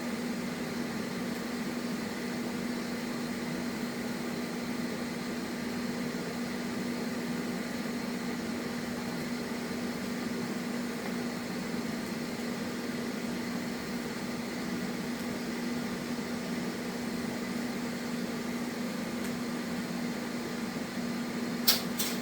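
Vulcan 205 TIG welder running during a weld: a steady electrical hum with hiss, and two sharp clicks near the end.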